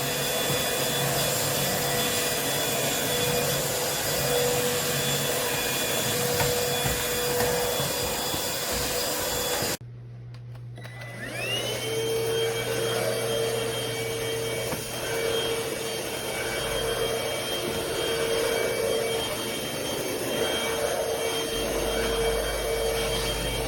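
Cordless vacuum cleaner running steadily with a motor whine. It cuts off suddenly about ten seconds in, then a vacuum motor spins up with a rising whine and runs steadily again.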